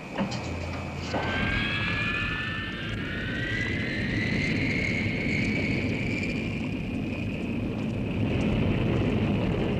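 Jet-like science-fiction sound effect: a steady rushing roar, with several whines gliding upward in pitch from about a second in and then holding level.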